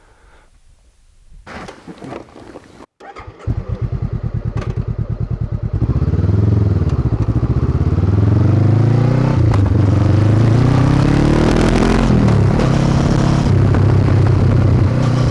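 Honda CB500X's parallel-twin engine through a Staintune exhaust, starting up a few seconds in and idling briefly with an even pulse. It then revs as the bike pulls away, the pitch rising and dropping through the gear changes before settling into a steady cruise.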